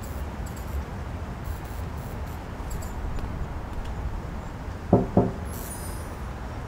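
Low, steady rumble of a quiet night street with a few faint clicks, then two sharp, resonant knocks in quick succession about five seconds in.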